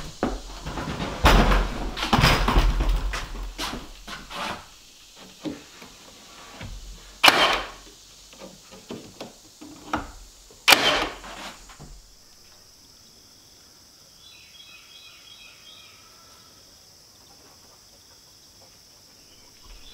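Cordless nail gun firing nails into wooden trim: two sharp shots, about 7 and 11 seconds in, among handling knocks and clatter. About 12 seconds in, this gives way to quiet woodland ambience: a steady high hiss with a few faint chirps.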